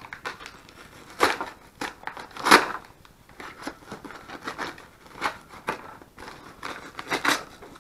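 Padded paper mailer being opened by hand: irregular bursts of paper crinkling and tearing, the loudest about a second and two and a half seconds in.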